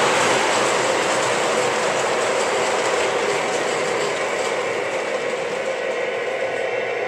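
Lionel O-gauge Union Pacific diesel locomotive running along model railroad track: a steady rolling clatter of wheels on rail with gear and motor whir, easing off slightly.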